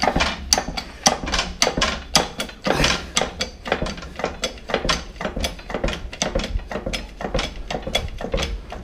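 Hydraulic shop press being hand-pumped, its pump lever and valves clicking about three or four times a second, with now and then a louder clank, as it presses a worn front wheel bearing out of its carrier.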